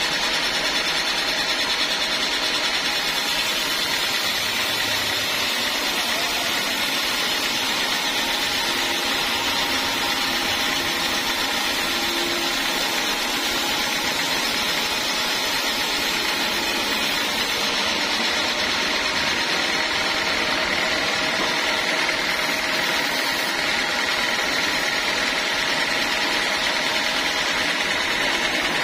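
Large sawmill band saw running steadily as its blade cuts lengthwise through a teak log, an even, unbroken machine noise.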